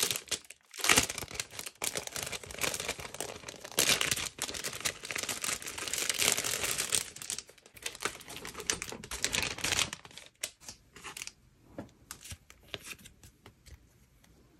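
Thin clear plastic wrapping crinkling and crackling as it is peeled open and handled around a planner and a stack of paper inserts; the crackle thins out about ten seconds in to a few scattered light ticks and rustles.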